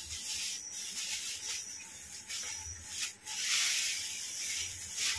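Clear plastic wrapping rustling and crinkling as a tripod wrapped in it is handled, with a few sharper crackles.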